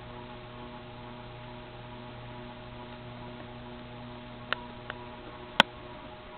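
Sierra Victorian ceiling fan motor running on low with a steady electrical hum, the kind a fan on a variable speed control gives. A few sharp clicks sound near the end, one of them much louder.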